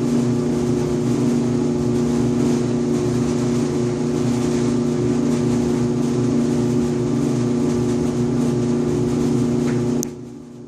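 Electrolux EIED55H electric clothes dryer running with a loud, steady buzzing hum and vibration, made up of several pitched tones. The buzzing was traced to a failing blower assembly. Near the end it drops away suddenly after a sharp click.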